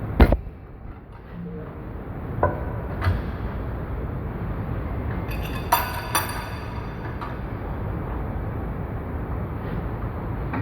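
Sharp metal knocks and clinks at a lathe, the loudest knock right at the start, two lighter ones a few seconds later and a pair of ringing clinks around the middle, over a steady machine hum.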